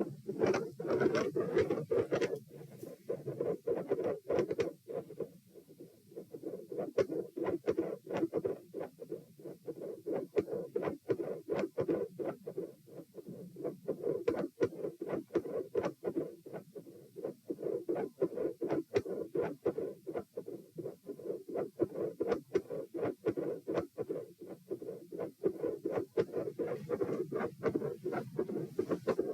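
Heart sounds recorded at the chest: dull beats under many fine clicks and scratchy contact noise, with a louder scratchy stretch in the first two seconds. The level swells and dips every few seconds, the respiratory phasic pattern that the recorder finds unusual and that persists despite provoking manoeuvres.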